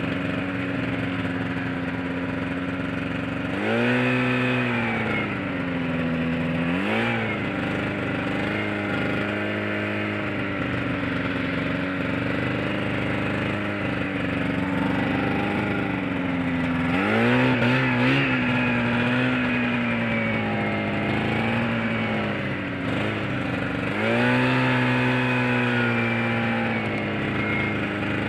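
Snowmobile engine running under way, revving up in surges and easing back off, about four, seven, seventeen and twenty-four seconds in.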